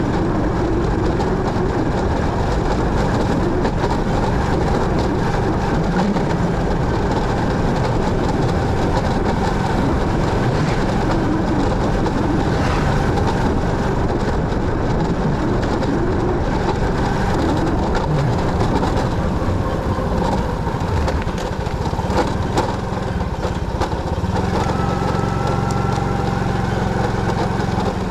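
Motorcycle running under way: steady engine and road noise. About 24 seconds in, a steadier low engine hum with a thin higher tone comes in.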